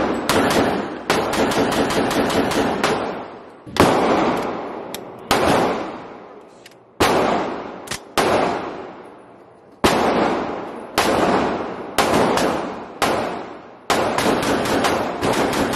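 Pistol-caliber AR-15 carbine firing semi-automatic shots, each with a sharp report that rings out and dies away in the indoor range. A quick cluster of shots comes in the first few seconds, then single shots follow about every second or so.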